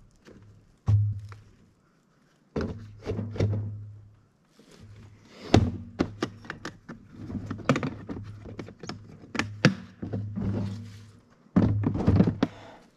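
An irregular run of dull thuds and knocks, a dozen or more in loose clusters, with sharp strikes about a second in and near the middle.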